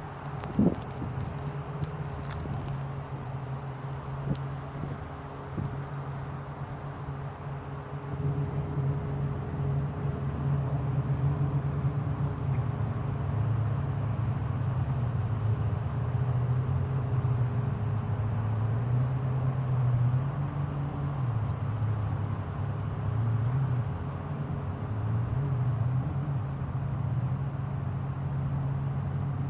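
Insects, likely crickets, trilling steadily in a high, evenly pulsing buzz, over a continuous low wavering rumble.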